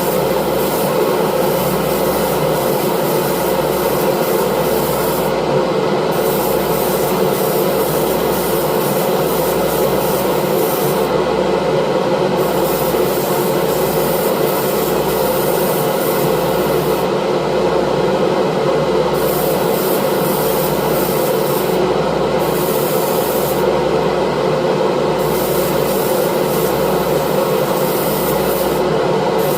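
Airbrush spraying paint, its hissing air cutting out briefly about six times as the trigger is let off, over a steady motor hum.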